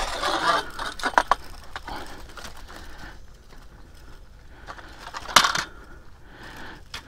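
Rustling handling noise with a few sharp clicks, then a single loud knock about five seconds in as the camera falls over and hits the ground.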